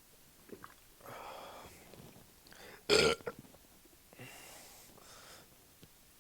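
One short, loud burp about three seconds in, brought up by chugging carbonated orange soda, with softer breathy sounds before and after it.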